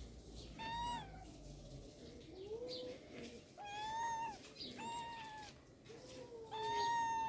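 Cat meowing repeatedly in high-pitched calls, four of them, the last one loudest and drawn out, with fainter lower calls in between.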